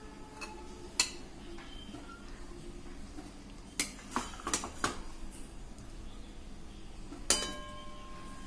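A steel spatula clinks against a ceramic plate and a metal pan as curry pieces are served: one knock about a second in, a quick run of clinks around the middle, and a sharp strike near the end that rings on for over a second.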